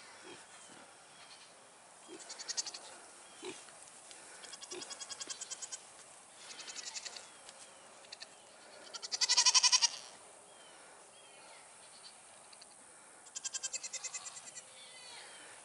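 Goats calling in a string of short, rapidly pulsing cries, about six in all, the loudest about nine seconds in.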